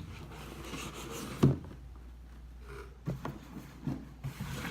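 A cardboard sneaker box and its contents being handled: light rustling with several knocks and thumps, the loudest about a second and a half in and a cluster of smaller ones near the end.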